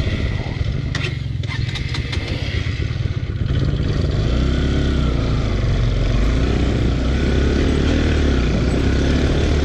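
Off-road motorcycle engine running on a rough dirt trail, its pitch rising and falling with the throttle, with a few sharp knocks about a second in.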